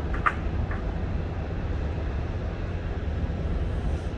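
Wind buffeting the microphone in a steady low rumble over the rush of sea surf, with one short higher sound just after the start.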